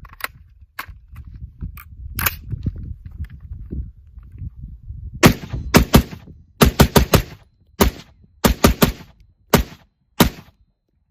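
Handling noise with a few sharp clicks as the magazine goes in. Then, about five seconds in, a PWS MK111 AR pistol in .223 Wylde fires unsuppressed: roughly a dozen loud shots in quick clusters of two to four, stopping shortly before the end.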